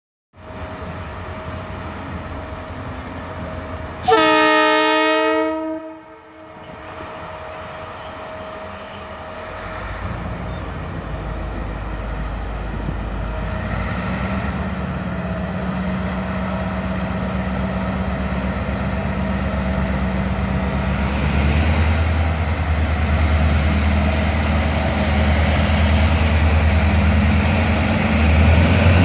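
A TCDD DE 22000-class diesel-electric locomotive sounds its horn once, a loud blast of about two seconds some four seconds in. Its diesel engine then runs on, the low engine sound growing steadily louder.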